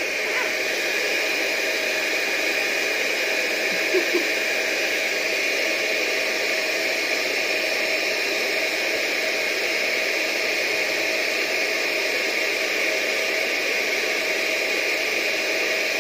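Blow dryer running steadily on a puppy's fur. Two brief sharp sounds come about four seconds in.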